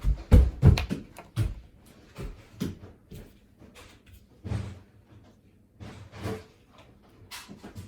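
A series of knocks and thumps from objects being handled and set down, several close together in the first second and a half, then scattered single knocks.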